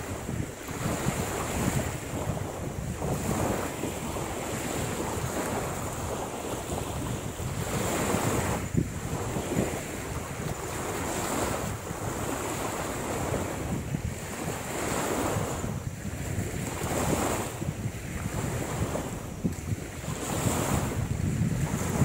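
Small waves washing onto the shore, swelling and falling every couple of seconds, with wind buffeting the microphone and a thin steady high tone underneath.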